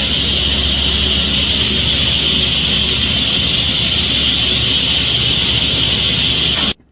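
Woodworking power tool running steadily with a loud, high rushing noise that cuts off abruptly near the end.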